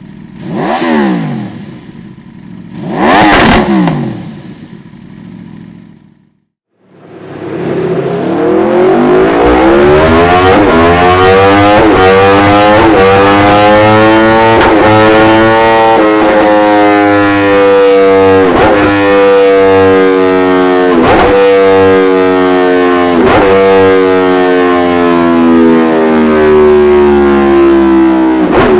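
Aprilia RSV4's V4 engine through a Dominator aftermarket silencer: two quick throttle blips, then, after a brief break, a long sustained high-rev run whose pitch climbs for several seconds and then eases slowly down, with short regular breaks every couple of seconds.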